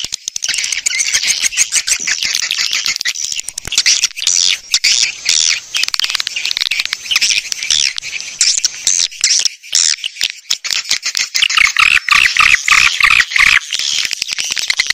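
Dense, continuous chattering and chirping of many swiftlets: a swiftlet lure recording, played to draw swiftlets in to nest. From about eleven seconds in the calls run somewhat lower in pitch.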